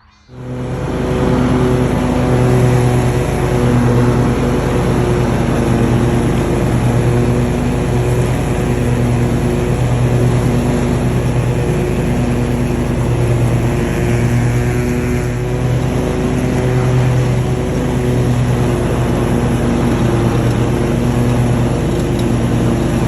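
Lawnmower engine running steadily at working speed, a loud continuous hum with a slow, regular swell.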